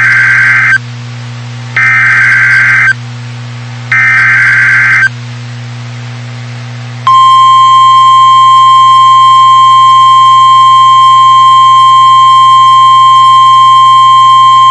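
NOAA Weather Radio alert signal: three one-second bursts of buzzing SAME header data, about a second apart, then about seven seconds in the steady 1050 Hz warning alarm tone starts and holds. The tone marks that a warning, here a severe thunderstorm warning, is about to be read.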